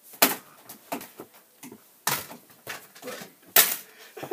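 Small ball knocking against an over-the-door mini basketball hoop's backboard and rim and dropping, with three sharper knocks (near the start, about two seconds in, and about three and a half seconds in) and lighter taps between.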